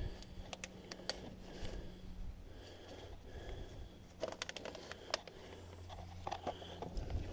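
Faint handling noise: scattered small clicks and rustling as the wiring loom is worked loose in a van door, over a low steady hum.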